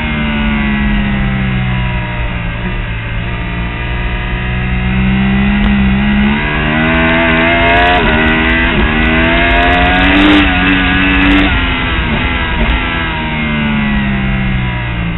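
Onboard sound of a Yamaha R1 inline-four engine at racing speed, with wind rush. Revs fall over the first few seconds, climb in steps through the middle as it accelerates through the gears, and drop again near the end as it slows for a corner.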